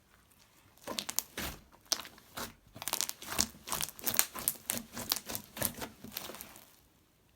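Large clear-glue glitter slime being squished and stretched by hand, giving an irregular run of sharp clicks and pops that lasts about six seconds and stops shortly before the end.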